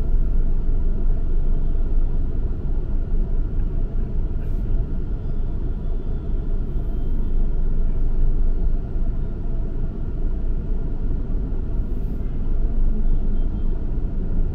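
A car driving, with a steady low rumble of engine and tyre road noise.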